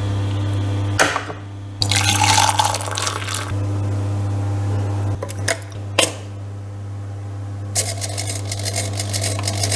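Small electric motor of a 3D-printed tea-stirring machine running with a steady hum as it stirs liquid in a cup. Two stretches of swishing, about two seconds in and again near the end, with a few sharp clicks between.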